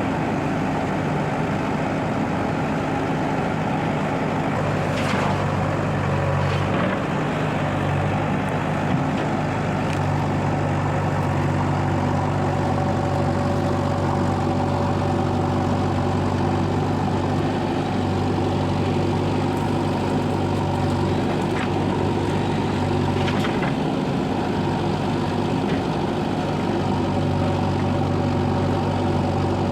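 Heavy diesel engine running steadily, with a few short sharp knocks.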